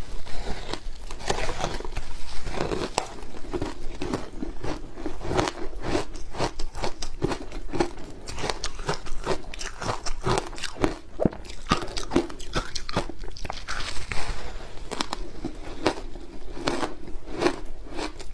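Layered ice being bitten and chewed: dense, continuous cracking and crunching as the ice breaks between the teeth, with many sharp snaps throughout.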